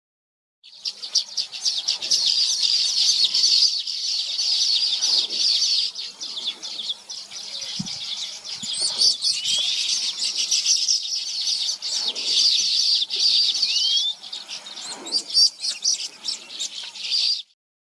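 Many small birds chirping at once in a dense, continuous chorus of rapid high chirps, with a couple of short rising whistles. It starts about a second in and cuts off abruptly just before the end.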